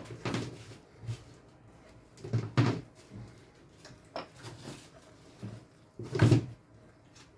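Several short clunks and knocks from kitchen handling, spread over the seconds, with the loudest about two and a half and six seconds in.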